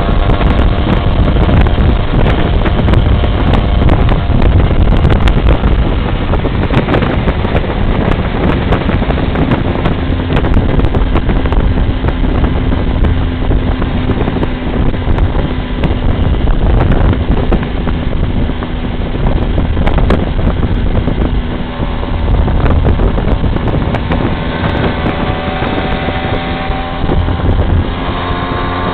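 Suzuki AX100's two-stroke single-cylinder engine running at speed, recorded onboard and heavily buffeted by wind on the microphone. Near the end the engine pitch climbs as it accelerates.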